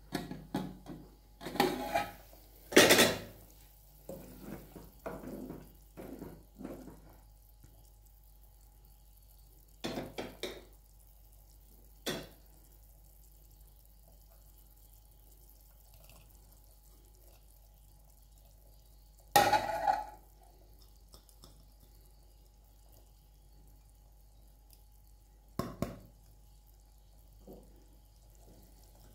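Aluminium plate-lid clattering against an aluminium cooking pot as it is lifted off with a cloth, a burst of knocks and scrapes loudest about three seconds in. Then scattered knocks of a bowl and utensils against the pot, with a loud metal clank that rings briefly about twenty seconds in.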